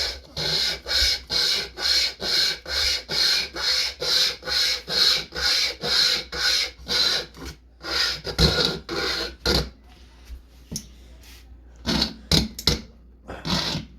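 Hand-pulled pocket chainsaw chain rasping back and forth through wood in even strokes, about two a second. After a short pause a few more strokes follow, then the sawing stops about ten seconds in as the chain sticks in the cut, and only a few scrapes come near the end.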